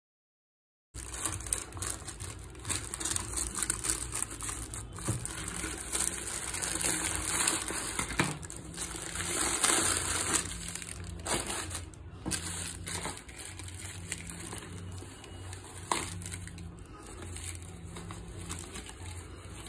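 Clear plastic wrap and a plastic courier mailer crinkling and rustling as hands pull and tear them open, with scattered clicks and scrapes. It starts about a second in.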